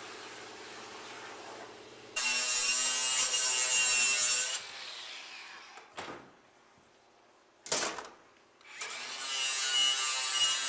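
For about the first two seconds a CNC plasma cutter runs as a steady, lower hum. Then a cordless angle grinder takes off the dross left by plasma cutting on a steel sheet: it grinds loudly with a high whine, spins down, gives a brief burst, and spins up to grind again near the end.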